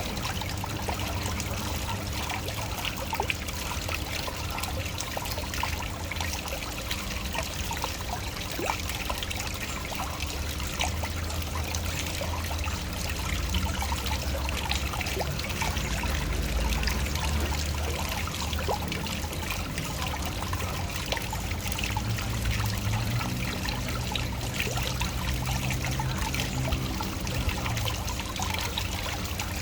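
Waterfall: water falling and splashing steadily, with a low rumble beneath that swells and fades.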